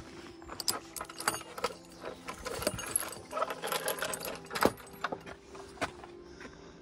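Wooden field gate with a metal latch being handled and pushed through: a quick run of metallic clinks and rattles, loudest around the middle.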